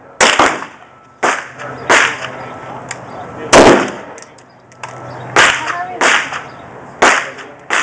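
Gunshots from firearms at a shooting range: about eight single shots at uneven intervals, each with a short echoing tail.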